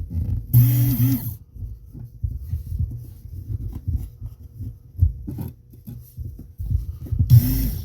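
Work Sharp belt-driven knife sharpener's small motor running the stropping belt in two short bursts: about a second long just after the start, and about half a second near the end, each starting and stopping abruptly. Low handling clatter comes between the bursts.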